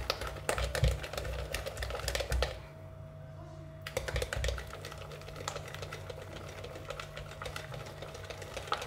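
A whisk beating a soft, sticky yeast dough in a glass bowl: rapid clicking and tapping against the glass, with a pause of about a second roughly three seconds in. The dough is being beaten hard to develop its gluten so that it comes out light.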